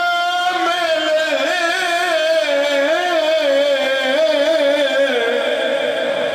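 A man's voice singing one long held line with a wavering, ornamented pitch that drops lower near the end. It is the sung lament-style recitation of a zakir's elegy at a mourning majlis.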